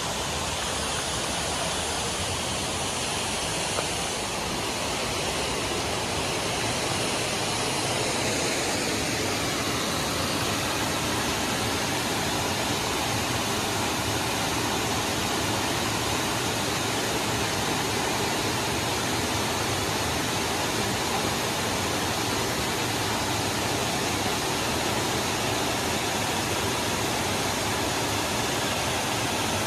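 Waterfall: river water rushing steadily over a wide cascade of rock ledges, an even unbroken rush.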